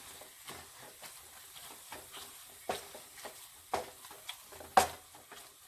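A masher pressing and mashing soft cooked tomatoes and spices in a hot pan, knocking sharply against the pan several times at an uneven pace, the loudest knock near the end, over a faint sizzle from the cooking.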